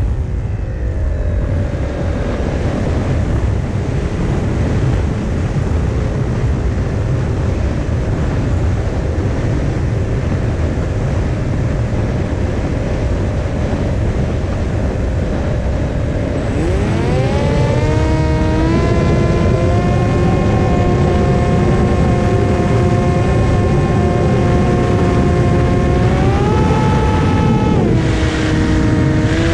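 Brushless motor and pusher propeller of a TBS Caipirinha 2 FPV flying wing whining in flight, heard through the onboard camera's microphone with heavy wind rush over it. The whine stays low and steady at part throttle for the first half, climbs sharply as the throttle opens about halfway through, steps higher again near the end, then drops back.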